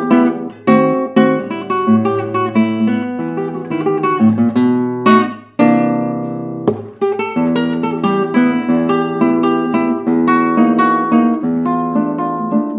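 Background music: acoustic guitar picking and strumming, with a held chord about halfway through.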